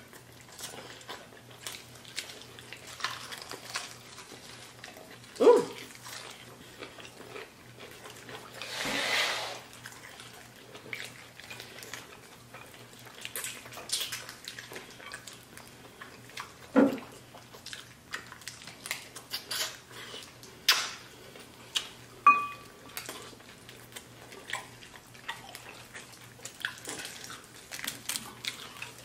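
Close-miked eating of fried chicken wings: wet chewing and lip smacking with scattered small clicks and a few short thumps.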